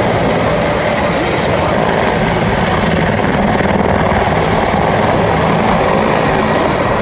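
Mil Mi-24/35 Hind attack helicopter in flight: the steady, loud noise of its twin turboshaft engines and five-blade main rotor.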